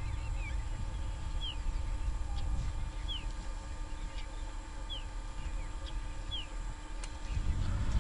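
A bird calling over and over, one short falling chirp about every second and a half, over a steady low rumble.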